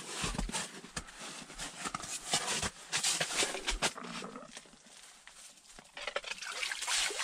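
A metal ice poker jabbing and scraping down a slush-filled ice-fishing hole, with irregular knocks, scrapes and crunches of ice and slush as it works loose a fish caught under the ice. The poking eases off about halfway through, then picks up again near the end.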